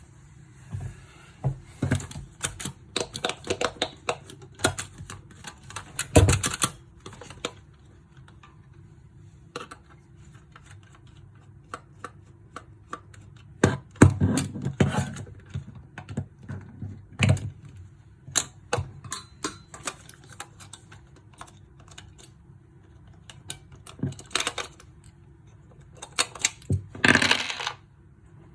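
Plastic ball-pressing fidget toy being clicked by hand: irregular bursts of sharp plastic clicks with short pauses between them, and a dense run of clicks near the end.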